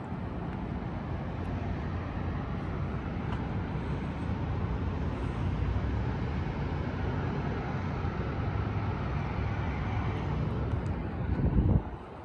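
Wind buffeting the microphone: a steady low rumble that swells to a loud gust near the end, then drops off suddenly.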